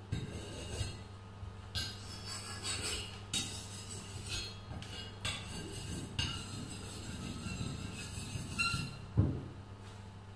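Steel rubber tapping knife blade being rubbed back and forth on a wet sharpening stone, giving irregular scraping strokes with metallic clinks. A dull thump about nine seconds in is the loudest sound, over a steady low hum.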